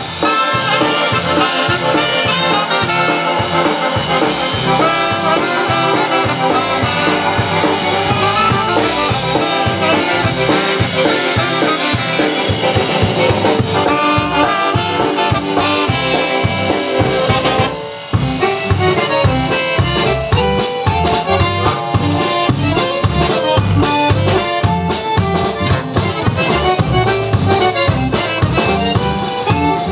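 Live band playing an instrumental break led by a concertina, with bass guitar and drums underneath. The music drops briefly about two-thirds of the way through, then carries on.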